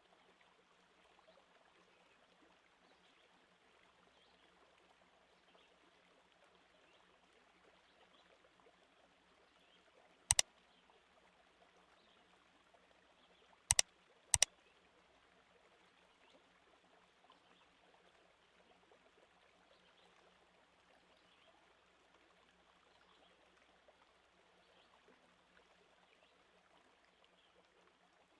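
Faint steady sound of a flowing stream, added as a background effect. Three sharp clicks cut through it, one about ten seconds in and two in quick succession around fourteen seconds.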